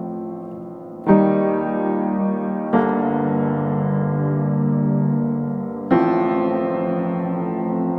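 Background piano music: slow, sustained chords, a new one struck about a second in, another near three seconds and another near six seconds, each left to ring and fade.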